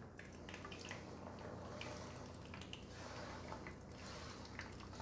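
Chopped onions going into a pan of hot oil and butter and sizzling faintly, with many small irregular crackles; the pan is heated only by the residual heat of the switched-off hob.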